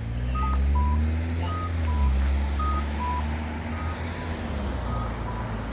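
Crosswalk pedestrian signal giving short electronic beeps that alternate high then lower, about one pair a second. Under them, and louder, a heavy vehicle's engine runs close by; its pitch rises and then drops about two seconds in.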